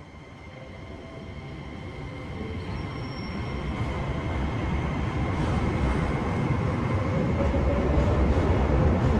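A train approaching, its rumble growing steadily louder, with a faint whine that rises near the end.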